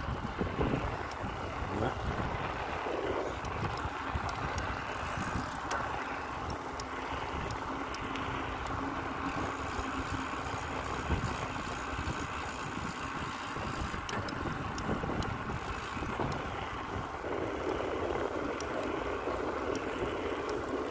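A bicycle rolling along a paved lane, heard as a steady rush of wind on the microphone and a low rumble of tyres on asphalt.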